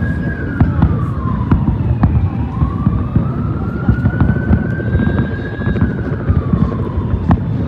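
Large fireworks display: continuous low booms and sharp cracks of shells bursting. Over it a siren wails, slowly rising and falling twice.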